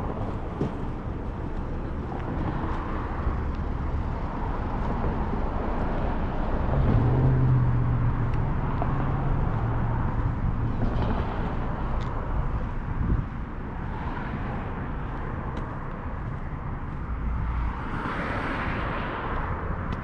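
Road traffic passing: a low engine hum swells about seven seconds in and fades, and a vehicle whooshes past near the end over a steady outdoor background noise.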